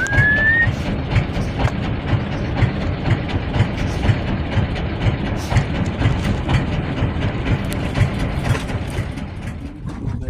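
A vehicle running with a steady low rumble and constant rattling and knocking. A short rising whistle-like chirp sounds right at the start.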